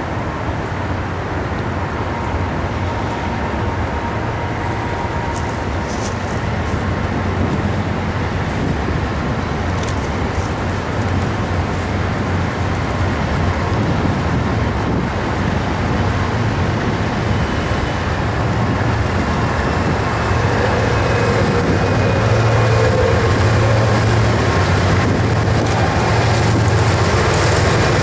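A pair of CSX GE wide-cab diesel-electric locomotives approaching at the head of a freight train. Their engines make a steady low drone that grows gradually louder as the train draws near.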